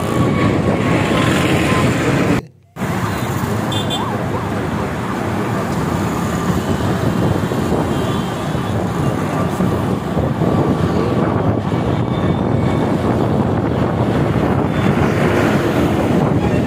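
Loud, steady roar of road traffic, with a jet airliner climbing overhead after take-off. The sound cuts out for a moment about two and a half seconds in.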